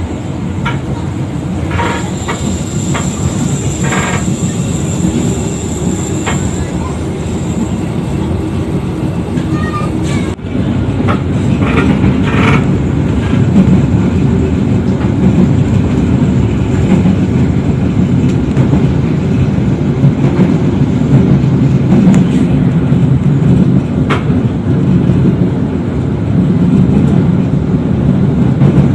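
Passenger train coach running along the track, a steady rumble heard from inside the carriage, with a few sharp clacks from the wheels. About ten seconds in it turns abruptly louder.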